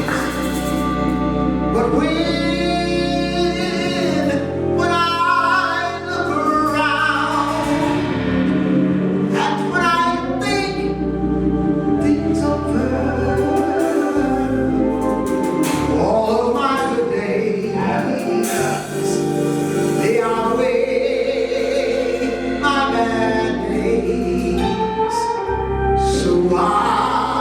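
Gospel music: singing, with wavering held notes, over sustained low accompaniment.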